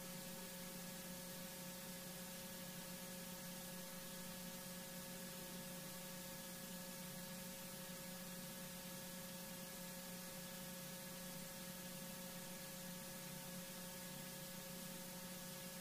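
Steady electrical hum with a faint hiss, unchanging, with no other sound.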